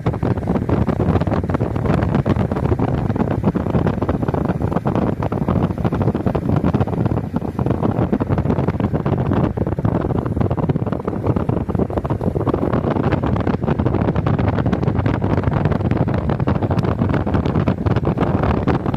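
Steady road and wind noise from a moving vehicle, with wind buffeting the microphone.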